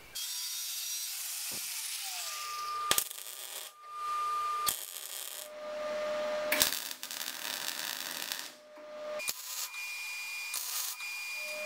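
Steel fabrication noise in short edited bursts: an angle grinder cutting a steel bracket, then the crackling hiss of a MIG 180 welder. The sound changes abruptly several times.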